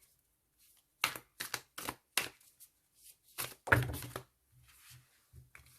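Tarot cards being handled and laid down on a table: a series of short, soft taps and clicks, bunched a little more tightly about two-thirds of the way through.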